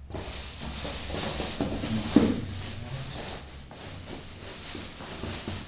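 Packaging being handled and pulled about in the opened box: continuous rustling and scraping, with a sharper knock about two seconds in.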